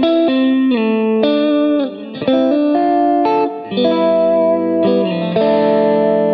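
Single-coil Stratocaster-style electric guitar played through a Nordvang Custom No.1 overdrive pedal that is switched on. Sustained, lightly overdriven chords and ringing notes change every second or so.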